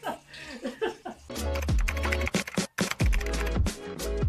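Intro music with a heavy beat that starts about a second in. A deep bass drops in pitch twice, under a fast run of clicks like typing.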